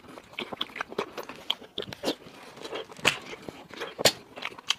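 Close-miked eating: a person biting and chewing, with irregular sharp wet clicks and smacks. The loudest clicks come about three and four seconds in.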